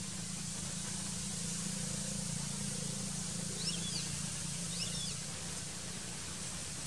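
Steady outdoor background hiss with a low hum, and two brief high chirping calls about a second apart near the middle.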